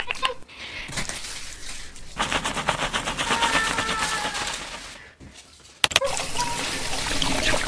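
Hair-washing sound effects: a few seconds of rapid crackling, squishing noise of shampoo being lathered and scrubbed through hair, then after a short pause a steady spray of running shower water.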